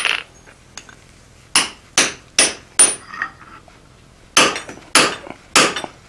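Hand hammer striking a round hot punch driven into a glowing 4140 steel bar on the anvil, punching the eye of a hammerhead through. One blow at the start, then two runs of four sharp blows about half a second apart, each ringing briefly.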